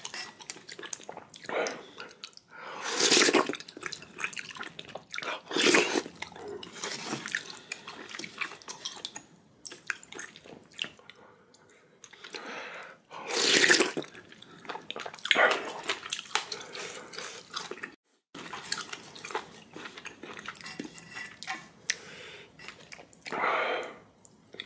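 Close-miked eating of spicy ramyeon broth with rice: several short, loud wet slurps, the loudest about halfway through, with quieter chewing and spoon sounds between.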